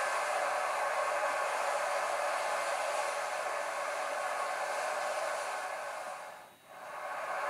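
Steady rushing noise with no distinct tones or rhythm. It fades down briefly about six and a half seconds in, then returns.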